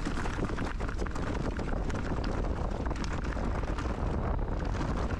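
Mountain bike running fast downhill on a dirt trail: wind buffeting the microphone over a steady tyre rumble, with a constant clatter of small knocks and rattles from the bike over the bumps.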